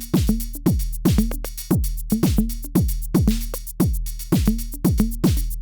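Original Arturia DrumBrute analog drum machine playing a beat dry, without distortion, so its dynamics come through: a deep kick with a falling pitch and bright hits, about four a second. The last kick rings out as the pattern stops near the end.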